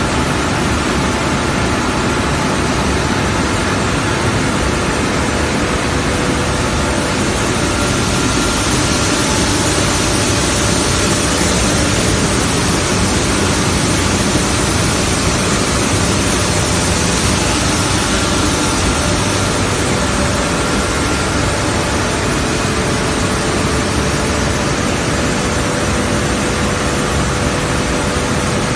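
Plastic film pelletizing line running: a steady, loud machinery noise, an even hiss with a constant hum in it.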